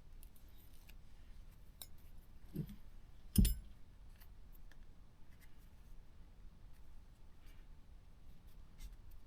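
Faint clicks and handling sounds of double-sided tape being cut and worked, with a soft thump about two and a half seconds in and a single loud knock about a second later.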